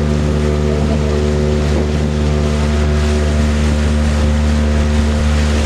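Motorboat engine running steadily while underway, a constant drone, with the rush of water and wind noise over it.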